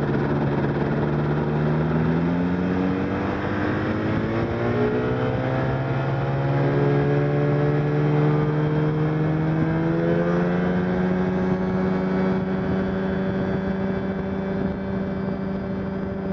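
Ultralight trike's engine running hard, its pitch climbing steadily over the first ten seconds or so as the revs rise, then holding at a steady high drone.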